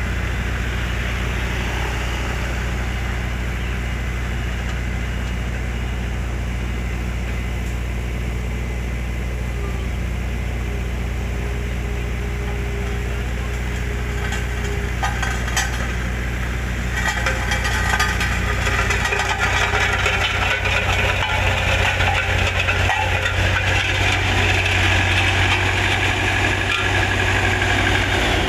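Diesel engine of a CASE tandem road roller running steadily at a low, even pitch; from a little past halfway it becomes louder and fuller.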